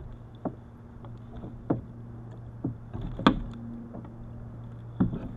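About five sharp knocks and taps against a plastic kayak hull as a hooked lingcod is hauled in by hand alongside the boat, the loudest a little past three seconds in, over a steady low hum.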